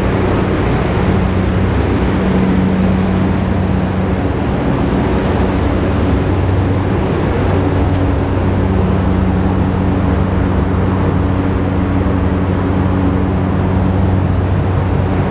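Power plant diesel generators running, heard as a loud, steady drone with a constant low hum.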